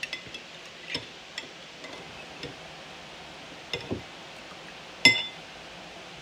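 Metal spoon clinking against a glass mixing bowl: a few light scattered clicks, then one louder ringing clink about five seconds in.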